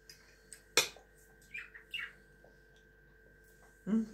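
Pet budgerigar giving a few short, falling chirps around the middle. Just before them comes one sharp clink of a fork on a plate.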